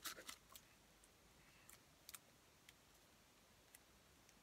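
Near silence with a few faint clicks and taps from handling a makeup brush and its clear plastic bristle guard.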